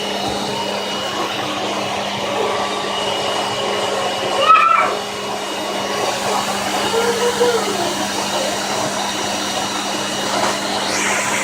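Household vacuum cleaner running steadily with a constant motor hum and rush of air. A short high voice cuts in briefly about four and a half seconds in.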